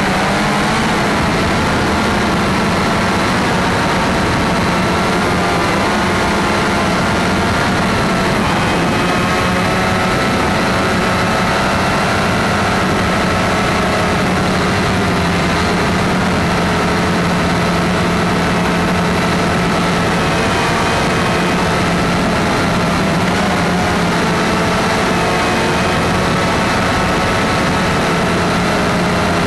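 Cheerson CX-20 quadcopter's electric motors and propellers, heard from the camera mounted on the drone in flight: a loud, steady hum with several tones whose pitch shifts slightly now and then as the motor speeds change.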